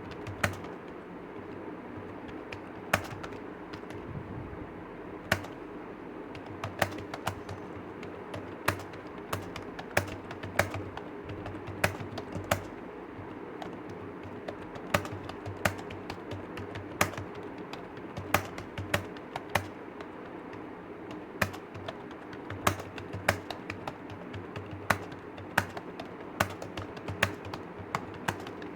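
Typing on a computer keyboard: a steady run of irregular keystroke clicks, with some keys struck harder than others, over a steady low hum.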